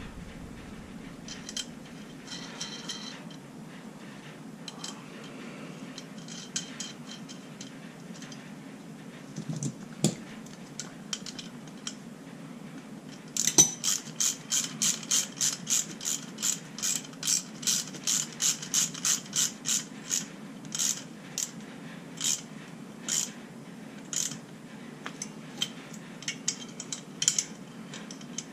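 Ratcheting wrench clicking on its return strokes while it turns a pair of locked-together M8 nuts to run a cylinder stud into the engine crankcase. The clicking starts about halfway in at about three clicks a second, then thins to scattered clicks near the end; before it, only faint handling sounds.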